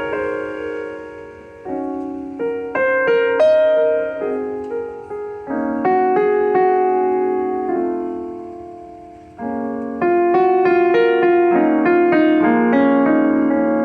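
Piano playing bridal processional music: a melody over chords, each note struck and then fading.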